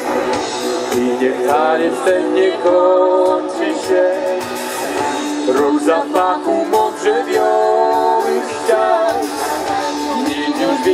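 Live folk-pop band music with singing over guitar, brass and percussion.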